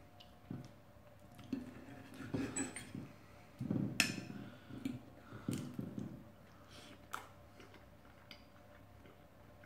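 Knife and fork working on a plate, cutting food: metal scraping and clinking against the plate, with a sharp clink about four seconds in and another near seven seconds.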